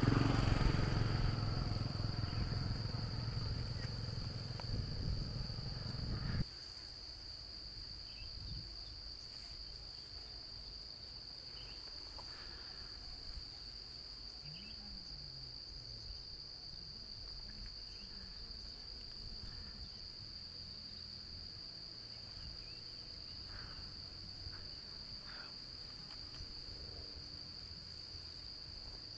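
Steady high-pitched insect chirring. For the first six seconds it sits under a loud low rumbling noise that cuts off suddenly, leaving the insect chirring alone with a few faint scattered calls.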